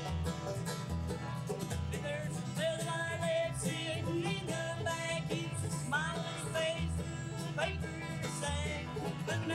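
Bluegrass band playing: picked banjo, mandolin and acoustic guitar over a steady, pulsing bass line.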